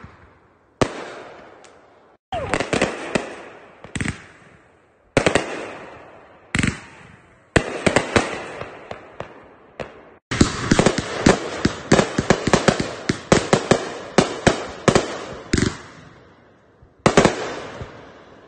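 Fireworks going off: a string of sharp bangs, each fading away afterwards. About ten seconds in comes a rapid volley of crackling reports lasting several seconds, then one more loud bang near the end.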